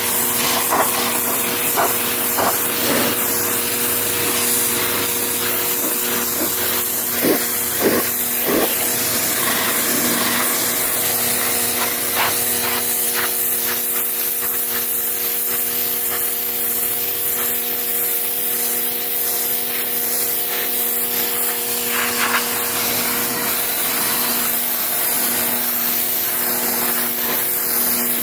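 A 2,500 PSI pressure washer running steadily, its water jet hissing as it sprays dirty car carpet, over the steady hum of the machine's pump. A few short knocks come about a third of the way in.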